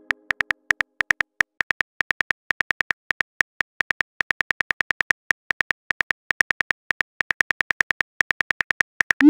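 Phone keyboard typing clicks: a quick, uneven run of short ticks, one per letter, as a text message is typed. At the very end a rising swoosh begins, the message-sent sound.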